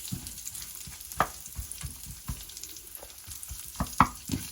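Chopped cashew nuts and dates sizzling in ghee in a non-stick pan as they are stirred. The spoon scrapes and knocks against the pan several times, loudest near the end.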